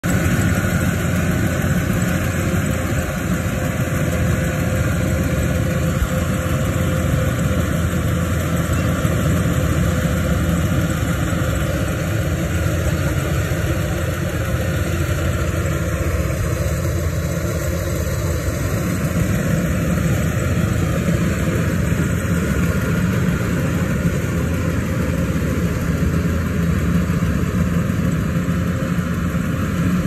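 Kubota crawler combine harvester's diesel engine and threshing machinery running steadily at working speed.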